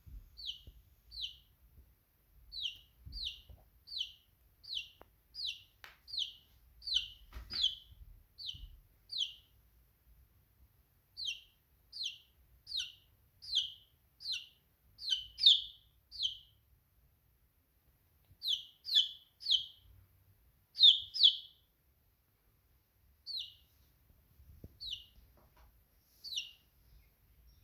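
A domestic chick peeping: short, high, downward-sliding chirps repeated about twice a second in runs, with a couple of brief pauses.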